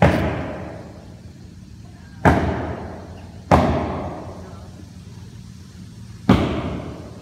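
Four loud, sharp bangs of wall-framing work on a wooden floor deck, irregularly spaced, each ringing out and fading over about a second.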